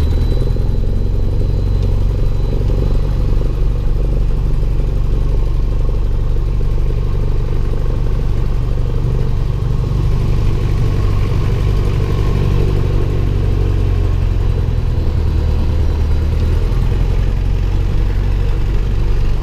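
Piston engine and propeller of a single-engine light aircraft running steadily at low power while taxiing, heard from inside the cockpit as a deep, even drone. The engine tone shifts slightly near the end.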